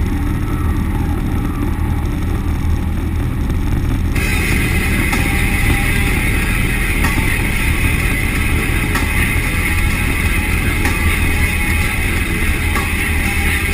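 Steady drone of a 700-plus-horsepower street truck's engine and exhaust cruising at an even speed, heard from inside the cab. About four seconds in, rock music with drums and guitar starts over it.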